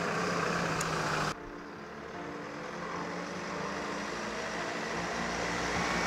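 Hyundai Solati campervan's engine running, a steady hum with road noise. It changes abruptly about a second in, then grows gradually louder as the van drives toward the microphone.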